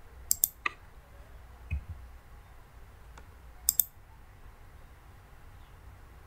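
Clicks of a computer mouse and keyboard: a quick double click about a third of a second in, a single click soon after, a dull knock near two seconds, and another quick double click a little before four seconds in.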